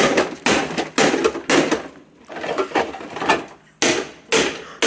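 An Aldi pod coffee machine being struck over and over with a hand tool, about two blows a second, each a sharp knock that dies away quickly; the machine is not breaking under the blows.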